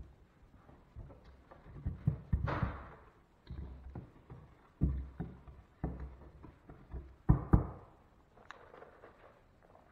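Dull thumps and knocks of a cut drywall patch being pushed and pressed into a square hole in the wall, with some scraping of its edges. Two sharp knocks in quick succession about three-quarters of the way in are the loudest.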